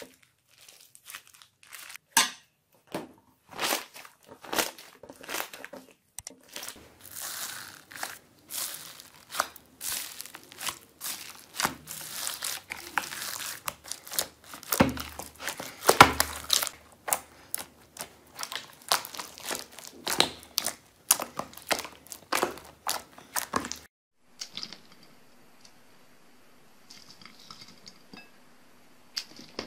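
Hands squeezing and pressing slime: a dense run of sticky crackling, popping and squelching sounds. About six seconds before the end it drops suddenly to a much quieter stretch, with a faint steady hum under a few small wet sounds of fingers moving water beads in a glass dish.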